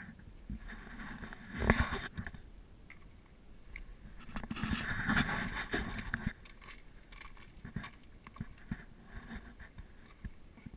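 Footsteps crunching and scuffing on loose shale scree and rock, with scattered small clicks and knocks. Two louder stretches of rough noise come about two and five seconds in.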